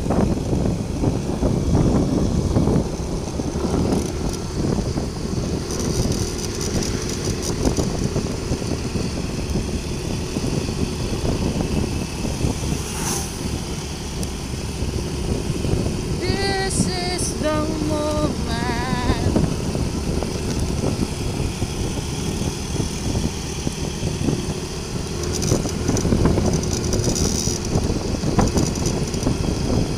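Yamaha scooter's engine running while riding along a road, with wind buffeting the microphone. A brief wavering, whistle-like sound comes in just past the middle.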